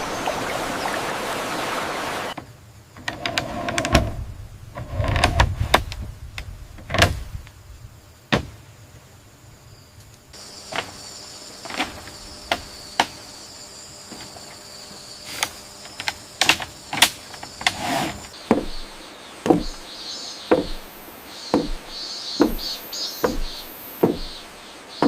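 Brief rush of water noise, then a run of sharp knocks and clicks, irregular at first and settling to about one a second in the second half: bamboo or wood being knocked during building work.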